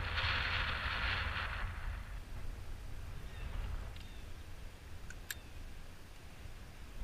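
Wind rumbling on the microphone with a strong hiss of water around the kayak for the first two seconds, then quieter, with two short faint clicks after the middle.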